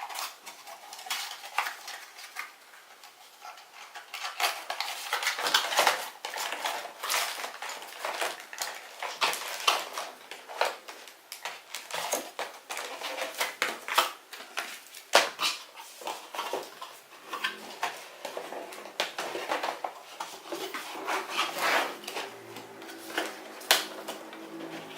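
Irregular clicks, knocks and rustles of cardboard boxes, plastic packaging and computer parts being handled during unboxing.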